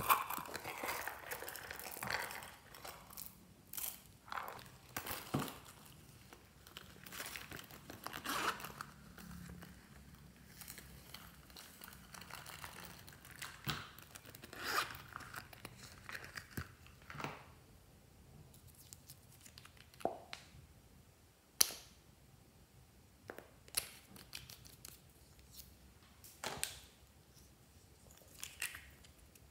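Zippers on small silicone coin purses being pulled open, and small plastic toys being handled: scattered short zipper rasps, rustles, and light clicks and taps, with one sharp click about two-thirds of the way through.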